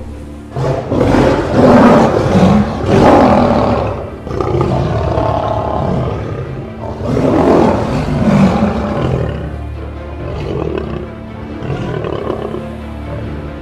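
Recorded lion roars and growls used as cartoon sound effects, several in a row and loudest in the first few seconds, over steady background music.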